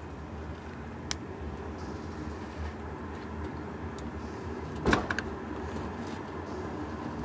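Low, steady rumble of a passenger train's running gear heard from inside the carriage as it pulls slowly out of the station. A sharp click comes about a second in, and a louder knock followed by two or three quick clicks comes a little before the end.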